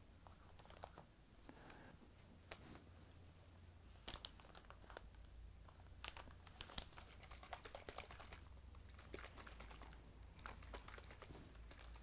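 Faint crinkling and scattered small clicks of raw silk fibres (lika, the wadding for a calligrapher's inkwell) being pressed by fingertips into a small glass jar, busiest in the middle.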